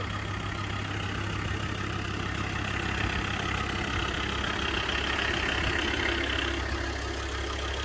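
Mercedes OM617 five-cylinder turbo diesel idling steadily.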